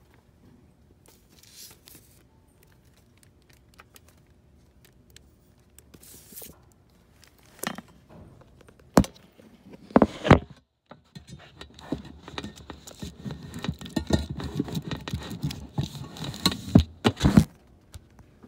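Handling noise from the recording phone: rustling and scraping against fabric or a hand, with a few sharp knocks. Faint at first, it gets dense and loud from about ten seconds in.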